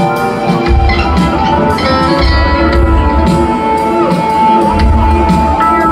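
Live rock band playing a slow jam: electric guitar and held notes over a pulsing bass.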